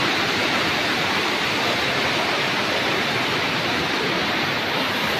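Mountain stream water rushing over rocks in a small cascade: a steady, even rush of white water with no breaks.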